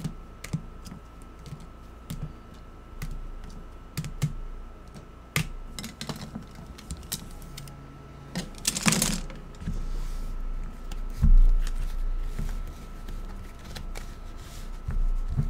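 Irregular light clicks and taps, with a short rustling swish about nine seconds in and a couple of low thumps a little after eleven seconds. A faint steady whine runs underneath.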